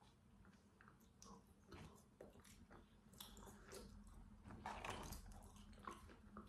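Faint chewing of french fries dipped in sauce, with soft wet mouth sounds and small clicks coming in short bunches.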